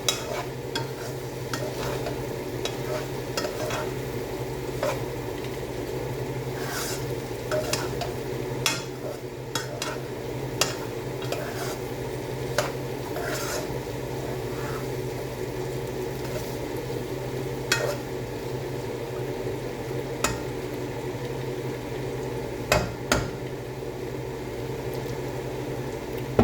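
Potatoes, tomatoes and luncheon meat sizzling in a frying pan while a spatula stirs them, with irregular clicks and knocks of the utensil against the pan over a steady low hum.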